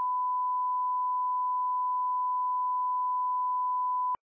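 A steady pure tone at about 1 kHz, one unbroken note that cuts off abruptly near the end: a reference test tone.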